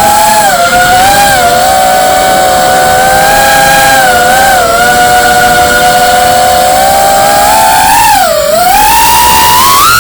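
FPV quadcopter's brushless motors whining together as several close, steady pitches. They dip briefly about eight seconds in, then climb as the throttle comes up near the end.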